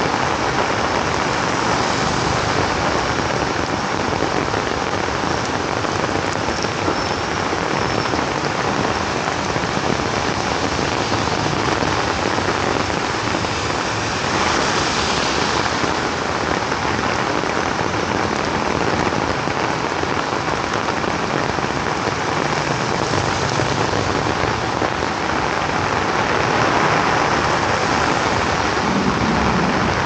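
Heavy rain pouring down steadily, a loud even wash of rain.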